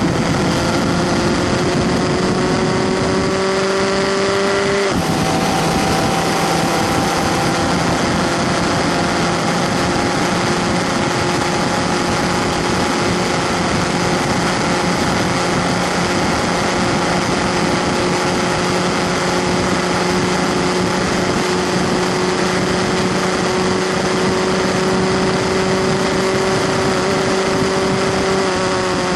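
Onboard sound of a Skip Barber 2.0-litre formula car's engine under full throttle, its note rising, with a gear change about five seconds in, then a long steady high-revving drone at speed over wind rush. The note drops near the end as the throttle eases.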